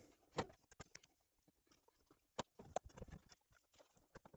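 Near silence broken by faint, scattered clicks and taps from hand work at the fuel pump access cover: a pick being worked through its rubber grommet and the pump wires being handled.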